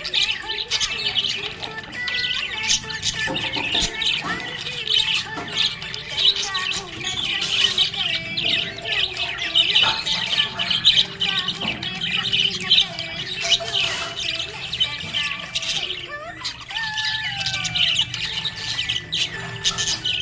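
Budgerigars chirping and squawking, many quick overlapping calls throughout.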